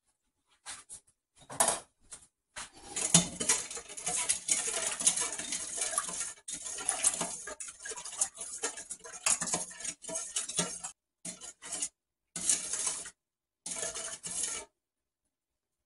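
Metal spoon scraping and clinking against a stainless steel mixing bowl as sorrel drink is stirred. The stirring runs steadily for several seconds, then breaks into a few short strokes near the end.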